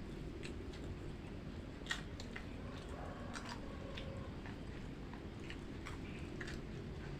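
A person chewing food, with scattered small crunches and mouth clicks and one sharper click about two seconds in.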